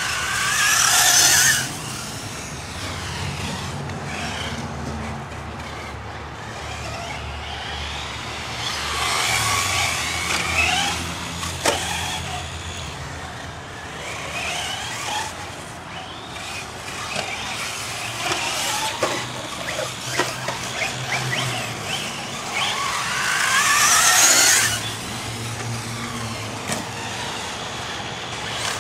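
Radio-controlled off-road cars running laps on a dirt track: a whine of motors and gears with the hiss of tyres on dirt, rising and falling as cars pass close by, loudest about three times.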